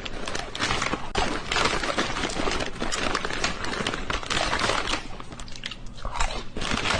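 Dense, continuous crunching and crackling, like chewing or crinkling, easing briefly about five to six seconds in.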